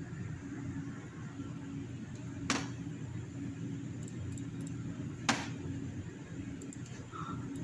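Steady low mechanical hum from running equipment, with two sharp clicks about three seconds apart and a few faint ticks.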